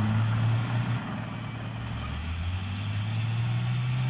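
Diesel truck engine working hard under load. Its note dips about a second in and then slowly rises.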